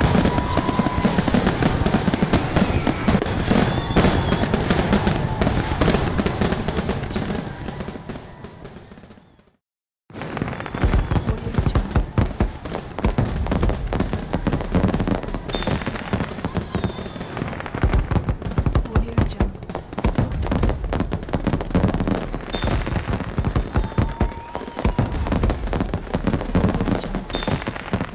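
Fireworks exploding in a dense barrage of bangs and crackling, with a few short whistles from whistling shells. The barrage dies away about nine seconds in and, after a second of silence, starts up again and runs on.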